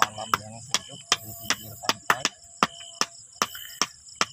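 Crickets chirping steadily, with a run of sharp clicks close by, several a second.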